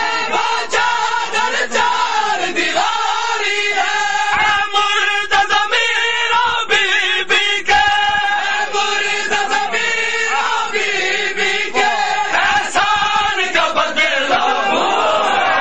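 Crowd of men chanting a noha, a Shia mourning lament, together in long held lines, with sharp hits scattered through it.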